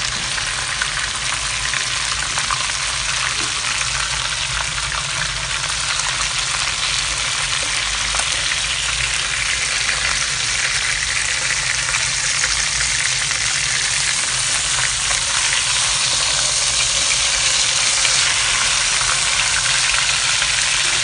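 Sambal-stuffed fish frying in hot oil in a pan: a steady, dense sizzle and crackle, growing slightly louder toward the end. The fish is golden brown, nearly done.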